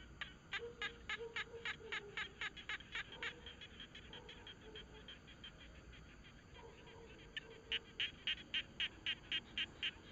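An animal calling in a rapid series of sharp, high notes, about four a second, in two bouts, the second near the end. Fainter, lower drawn-out notes come in between.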